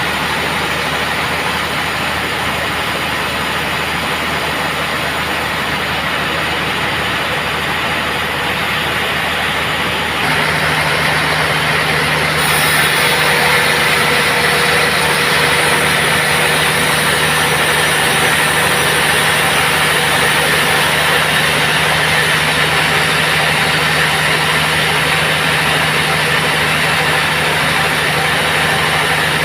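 Sawmill band saw running steadily. About ten seconds in it grows louder, with a steady low hum joining and more hiss soon after.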